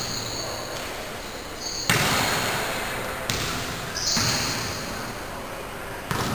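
A basketball striking the floor of a large gym during play: four irregular, sharp thuds, each followed by a long hall echo.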